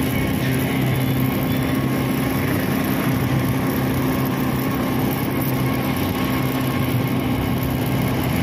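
ATV engine running at a steady speed while riding, a constant low engine note that holds the same pitch.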